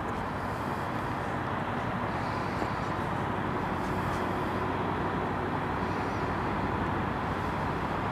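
Steady city night ambience: a constant hum of distant traffic, with a faint steady tone running through it.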